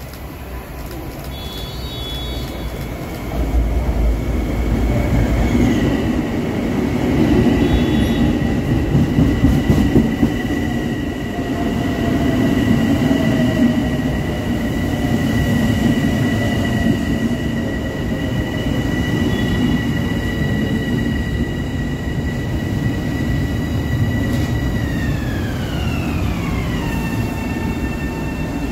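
A train running past, with a rumbling rail noise and a high steady whine that glides down in pitch near the end as it goes by.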